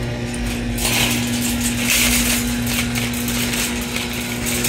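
Metal shopping cart being pulled free of the row and rolled over concrete: the wire basket rattling and the wheels clattering, starting about a second in. A steady low hum underneath.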